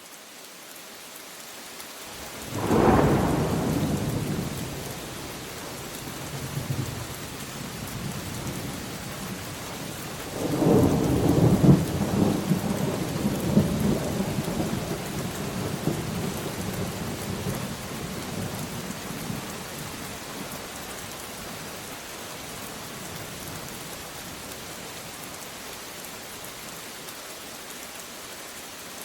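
Steady rain with two peals of thunder: a sudden clap about three seconds in that dies away over a few seconds, and a longer rumble with several peaks from about ten to fourteen seconds in, trailing off under the rain.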